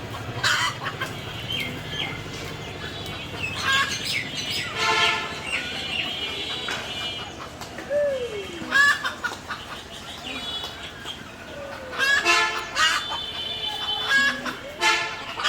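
Chickens clucking, with short calls coming every second or two.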